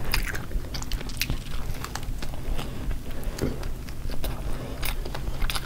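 Two people biting into and chewing slices of cheesy chicken pizza: scattered soft mouth clicks and crackles.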